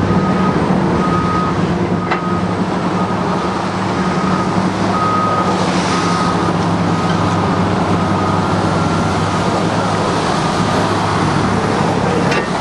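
Heavy truck engine idling steadily close by, with a reversing alarm beeping at an even pace, about once a second.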